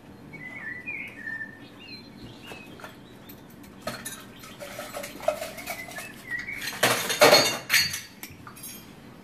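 Metal spoon scraping and clinking against glass and a metal tin as onion jam is spooned into a cocktail, with squeaky scrapes in the first few seconds and scattered clinks. About seven seconds in comes a loud rattling clatter lasting about a second.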